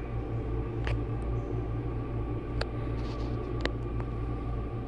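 Steady low hum of a small tiled restroom's room tone, with a faint steady whine above it and a few light clicks.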